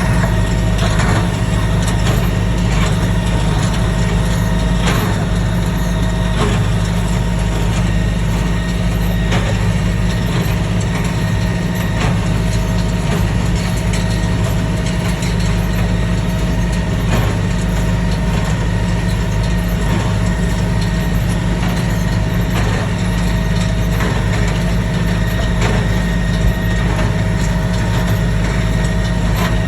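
Kubota M108S tractor's diesel engine running steadily while it pulls a John Deere 24T square baler picking up grass, with a faint knock from the baler every second or two.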